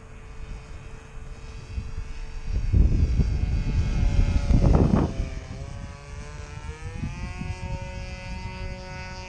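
An RC model plane's Evolution 60 two-stroke glow engine runs steadily in flight, heard from the ground as a distant drone. Its pitch rises about six seconds in as the plane climbs out. Midway a loud rush of low noise covers it for about two and a half seconds.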